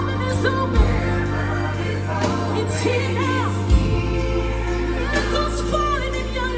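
Live gospel music: sustained keyboard chords over a low bass line that changes note twice, with short sliding vocal runs rising and falling above it.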